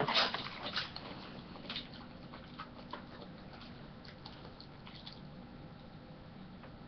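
Siberian husky chewing a fish treat: a quick run of sharp crunching clicks in the first second, then faint scattered clicks.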